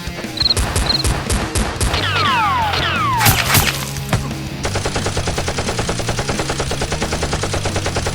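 Gunfire sound effects: a few separate shots, then several falling whistles, then sustained rapid machine-gun fire from about four and a half seconds in, over rock background music.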